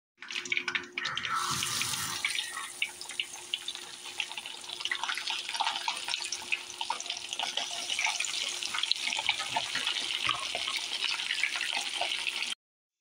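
Breaded bream frying in hot oil in a cast iron skillet: a dense, crackling sizzle full of small pops. The sizzle jumps up sharply about a second in as fish is laid into the oil.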